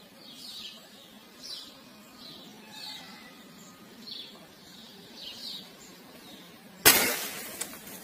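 Small birds chirping at a steady pace, then a single loud rifle shot about seven seconds in that dies away over about a second, followed by a faint click.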